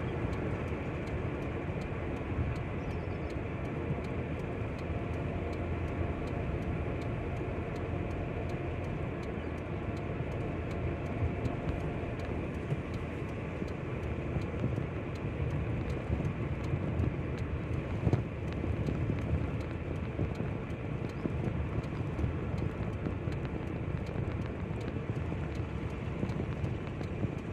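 Steady low rumble of a car's engine and tyres on the road, heard from inside the cabin while driving, with one brief knock about eighteen seconds in.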